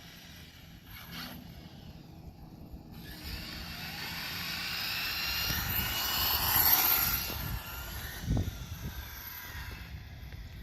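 Converted OFNA Mutilator RC truck's motor whining at speed. The whine swells to its loudest about seven seconds in and then fades away, with a short thump just after.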